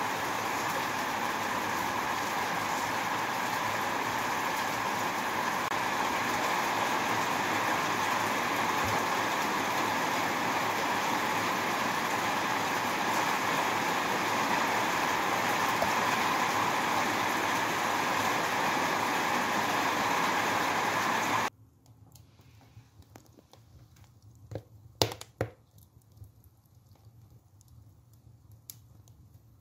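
Coarse salt mixed with dried herbs being rubbed and stirred by hand in an enamel bowl: a steady gritty rustle that cuts off suddenly about two-thirds of the way through. After that there are a few faint snaps from a wood fire burning in a stove.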